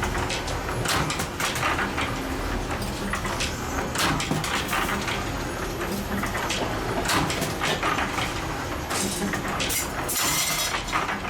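Spring-making machine running in a workshop: a steady low hum under irregular metallic clicks and knocks, with a short hiss about ten seconds in.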